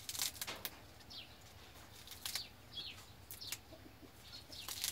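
Fresh green herbs being snapped and torn by hand into a clay mortar, a handful of short crisp snaps. Small birds chirp briefly in the background.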